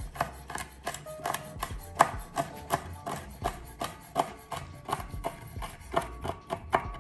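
Chef's knife chopping fresh rosemary and thyme on an end-grain wooden cutting board: a steady run of knocks on the wood, about three a second.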